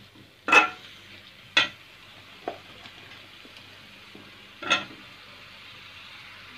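Vegetables sizzling as they are sautéed in spice paste in an aluminium karahi, stirred with a spatula. A steady faint sizzle runs under three sharp clacks of the spatula against the pan, about half a second, a second and a half and nearly five seconds in, with a lighter one in between.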